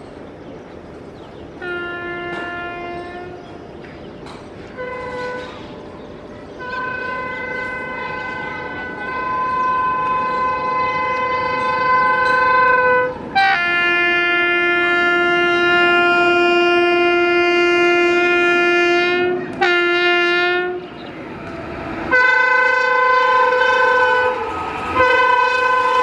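WAP-5 electric locomotive's dual-tone horn sounding a series of blasts that switch between a lower and a higher tone, with two long held blasts in the middle. It grows louder as the train approaches at speed over a rising rumble of the train, and the horn's pitch starts to drop as the locomotive passes at the very end.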